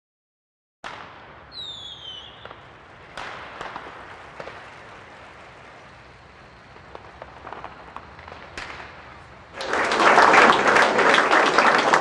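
Quiet room noise with a few faint knocks and a brief high falling whistle-like tone, then an audience bursts into applause about nine and a half seconds in, loud and sustained.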